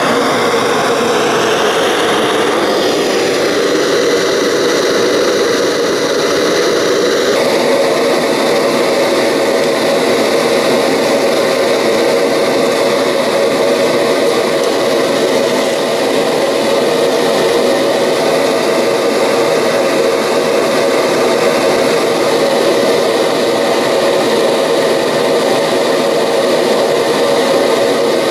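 Propane torch burner firing steadily into a thermalite-block gas forge, a loud even rush of flame that heats an old file for annealing. A thin high note above the rush drops away about seven seconds in.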